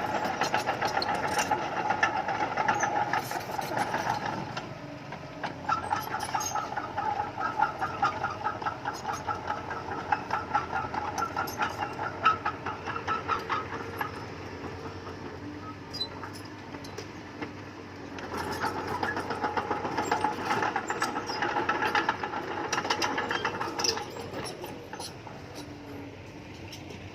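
Bulldozer working, its engine running with a rhythmic metallic clatter that comes in three spells, about four, eight and five seconds long, and drops back between them.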